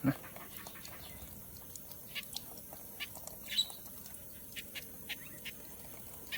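Young songbirds giving short, sharp chirps and ticks, scattered irregularly, with one louder high note about three and a half seconds in.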